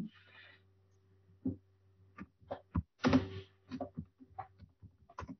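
Computer keyboard being typed on: irregular short key clicks and taps, over a faint steady electrical hum.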